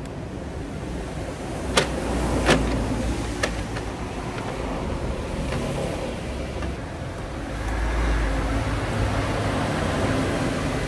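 Three sharp clicks within about two seconds, from parts being handled while a valve cover is fitted onto a BMW N54 engine, over steady background noise.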